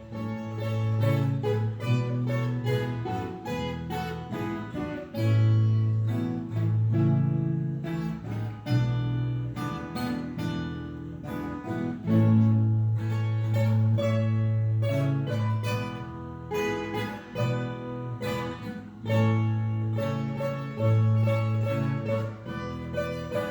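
Background music: plucked acoustic guitar with a steady bass line, fast picked notes throughout.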